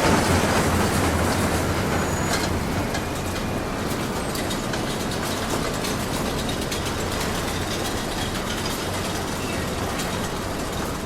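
An amusement-park ride rolling on its rail track: a steady rumble with rapid clicking and clacking, densest in the second half.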